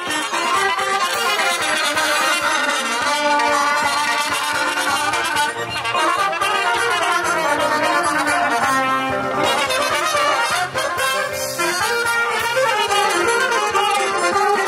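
Band music led by brass instruments, trumpet and trombone, playing a melody over a steady beat.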